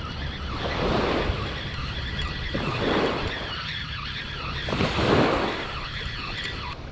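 Small waves washing onto the shore, swelling and falling back about every two seconds, over a steady low rumble of wind on the microphone.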